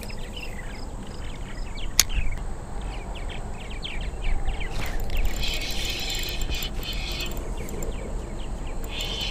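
Spinning reel being cranked, its gears whirring in spells, with a single sharp click about two seconds in and small birds chirping throughout.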